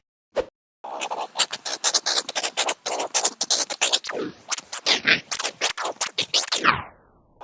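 Meerkat chirping, digitally altered: a fast run of short chirps starts about a second in. Toward the end the chirps swoop down in pitch and trail off.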